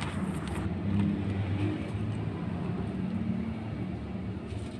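Low, steady hum of vehicle engines from street traffic.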